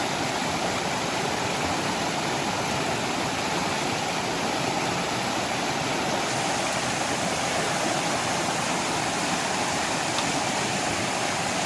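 Fast mountain river rushing, a steady unbroken water noise.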